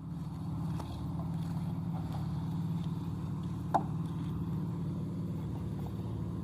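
Concrete mixer's small engine running steadily, with a single sharp knock a little past halfway.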